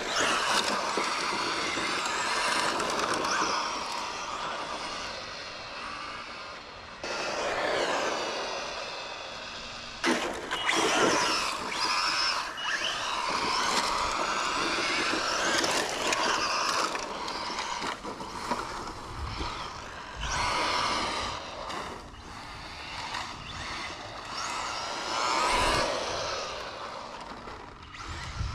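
Castle brushless motor of an Arrma Infraction Mega RC car on a 3S conversion, whining up and down in pitch with each burst of throttle and braking, over a steady rushing of tyres on a rough road.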